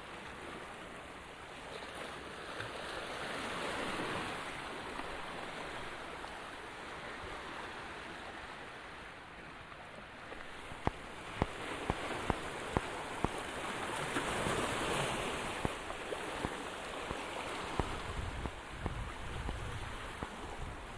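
Sea waves washing and splashing over shoreline rocks, swelling up twice. Past the middle comes a few-second run of sharp clicks.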